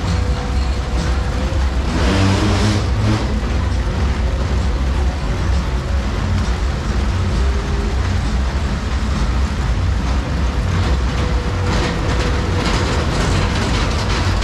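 Fairground ambience: a steady, loud low rumble with a faint held tone. There is a brief rush of noise about two seconds in and a run of sharp clicks and rattles near the end.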